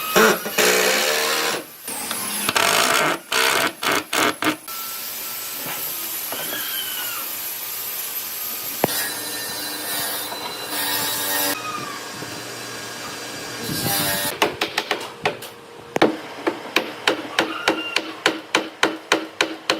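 Hand woodworking on wood, in changing stretches: a steady rasping scrape for several seconds, a few sharp strokes, then near the end a quick regular run of sharp strokes at about three a second.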